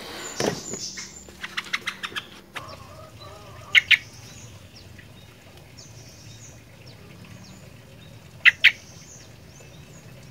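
Sooty-headed bulbul (kutilang) calling. A quick run of sharp notes comes in the first two seconds, then two loud short double notes, one about four seconds in and one about eight and a half seconds in, over faint high chirping.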